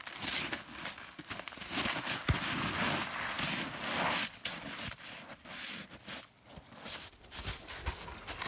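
Packed snow crunching and scraping, with clothing rustling, as people crawl on hands and knees through a low igloo entrance; an irregular run of rough, crackly noise.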